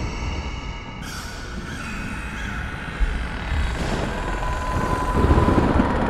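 Layered horror ambience sound effects: a low, rumbling drone under faint high held tones, with a sudden hit about halfway through and the rumble swelling louder near the end.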